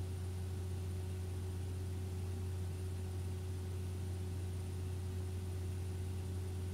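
Steady low electrical hum with a faint higher tone over constant hiss: the recording's background noise, with no speech or other events.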